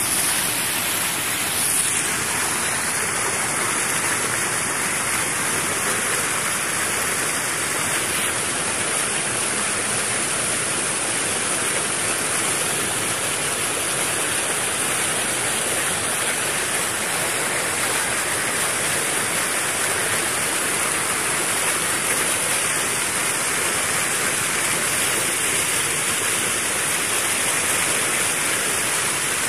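Fast-flowing floodwater rushing and churning in white-water rapids, a steady, unbroken noise of water.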